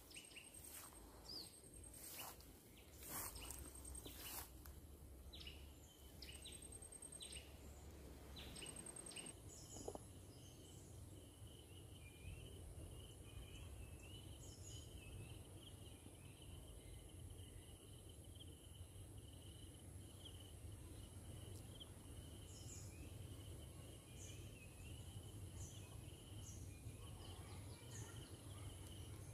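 Faint dry-zone forest ambience of insects and birds. A steady very high insect drone and a wavering high trill set in about a third of the way in, with scattered short bird chirps. A few sharp clicks and short repeated high pips come in the first few seconds.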